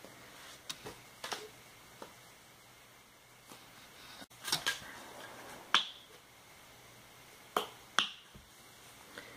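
About seven sharp clicks and taps from a paintbrush working a watercolor paint set, scattered and uneven, with the loudest two close together near the end.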